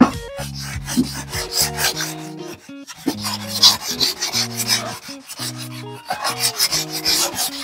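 Coarse sandpaper rasping over hardened body filler on a car panel in quick, repeated back-and-forth strokes, with background music underneath.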